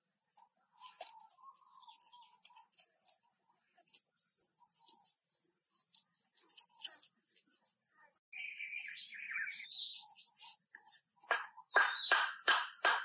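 Steady, high-pitched buzzing of forest insects, which grows louder about four seconds in. Near the end come five or six sharp knocks, about three a second, as a wooden mallet drives a bamboo stake into the ground.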